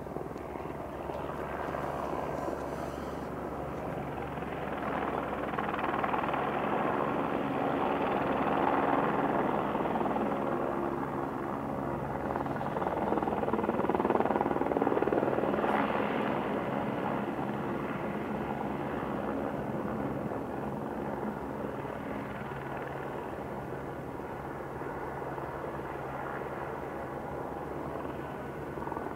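Helicopter flying, its steady rotor-and-engine sound growing louder through the middle and fading again in the second half.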